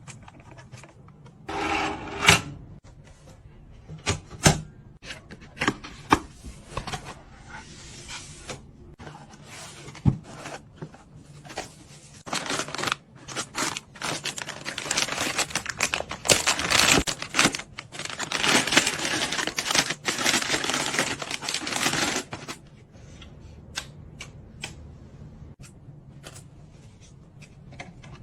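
Hands assembling a PC: a string of clicks, taps and knocks as parts are handled and seated, with stretches of rustling and scraping.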